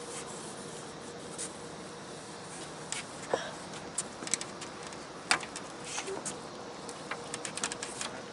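Steady faint hiss with irregular light clicks and knocks scattered through it, the sharpest about five seconds in and a cluster near the end.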